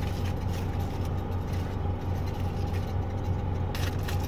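Steady low hum of an idling engine, with a few faint rustles near the end.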